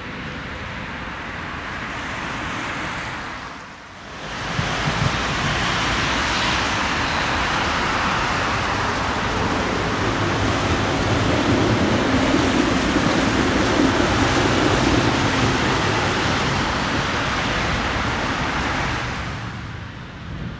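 Tram running along the track: a steady rushing noise of wheels on rail and running gear, with a low hum that grows louder around the middle. The sound dips briefly about four seconds in.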